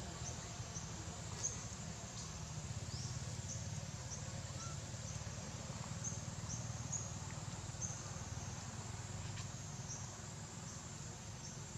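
Outdoor ambience: a steady low hum with short, high-pitched chirps that recur irregularly every half second to a second.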